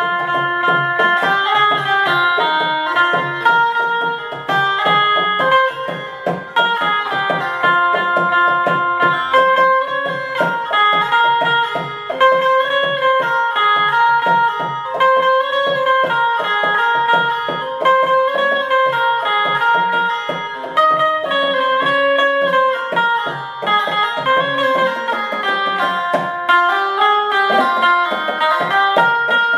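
Electric Indian banjo (keyed plucked-string zither) played through a small amplifier, picking out a song melody with quick, rapidly repeated plucks on each note.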